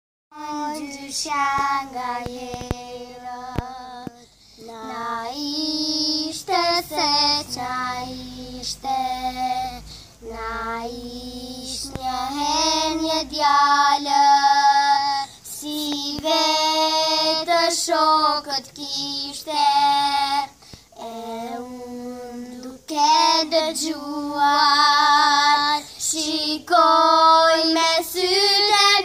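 Two young girls singing a song together, their voices holding long notes in phrases with short breaks between them.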